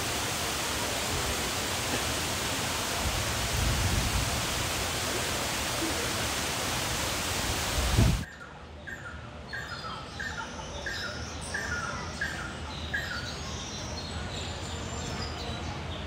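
Waterfall rushing steadily for about eight seconds, then an abrupt cut to a quieter spot where birds call: a run of seven or eight short repeated notes, about two a second, with higher chirps over them.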